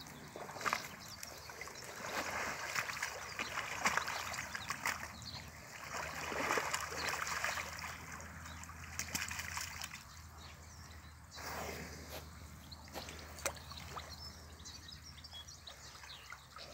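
Water buffalo wallowing in a shallow muddy pond, shifting their bodies so the water splashes and sloshes in irregular surges, strongest in the first half.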